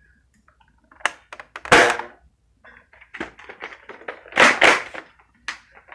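Nerf blaster being worked and fired: sharp mechanism clicks, with two loud puffs of a dart shot, the first about two seconds in and the second past the middle.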